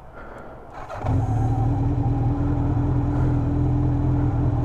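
Honda CB700SC Nighthawk's inline-four motorcycle engine starts about a second in and settles into a steady, smooth idle.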